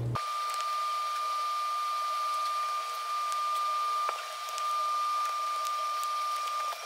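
Steady hiss with a constant thin, high-pitched whine running through it, and a few faint ticks.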